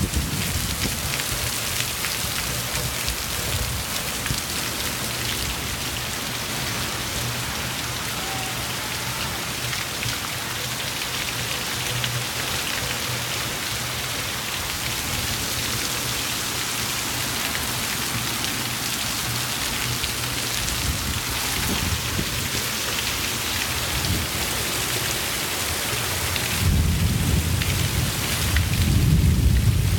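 Heavy downpour hissing steadily on grass, leaves and pavement. About 26 seconds in, a louder, deeper rush joins it as water pours in a sheet off a roof edge.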